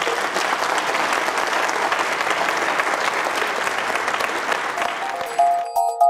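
Lecture audience applauding steadily. The applause fades near the end as outro music with clear notes begins.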